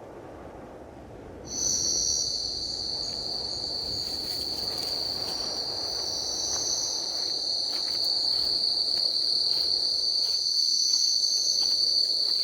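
Insects trilling in one steady, high, shrill drone that starts abruptly about a second and a half in, over a faint low rush that dies away near the end.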